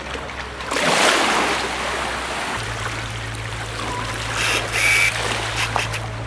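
Water rushing and splashing, with a loud surge about a second in, over a steady low motor hum that changes pitch partway through.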